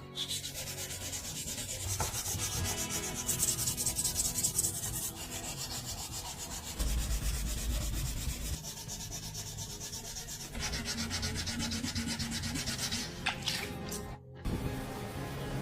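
Sanding and rubbing on the motorcycle's body panels, a rapid scratchy hiss of abrasive strokes. The sound shifts abruptly several times, in separate stretches of a few seconds each, with a short break near the end.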